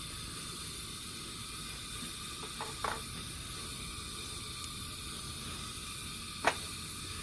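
A stove burner hissing steadily in the background. A few light clicks of small parts being handled, the sharpest about six and a half seconds in.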